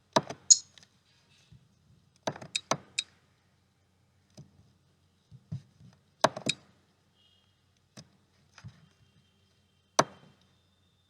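Lego Technic plastic parts clicking and knocking together as they are handled and fitted, in a few short clusters of sharp clicks with quiet gaps between.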